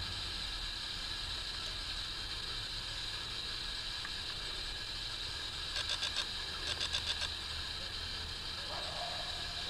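Steady outdoor background hiss over a low rumble, broken about six and seven seconds in by two short runs of a rapid, high-pitched trill.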